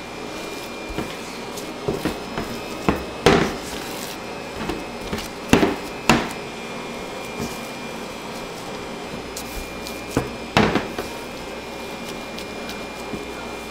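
Scattered knocks and clunks of utensils and equipment being handled in a bakery kitchen, loudest around three, five and a half, six and ten and a half seconds in. Under them runs a steady machine hum with a faint high whine.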